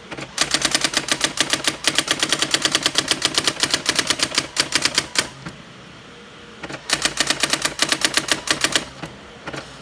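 Brother GX-6750 electronic daisywheel typewriter printing, its print wheel striking in rapid even runs of about a dozen characters a second. A run of about five seconds is followed by a pause of over a second, then another run of about two seconds and a few last strikes near the end.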